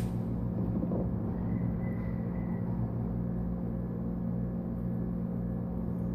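A steady low hum that runs on without change, with a faint brief high tone about two seconds in.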